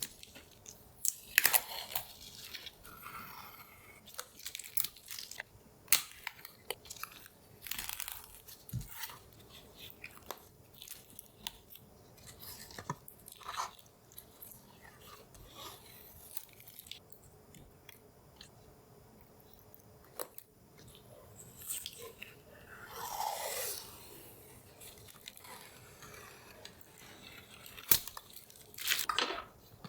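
Close-miked hands assembling PC hardware: scattered sharp clicks and taps of plastic and metal parts, with a few longer rustling swishes, the longest a little over two-thirds of the way through.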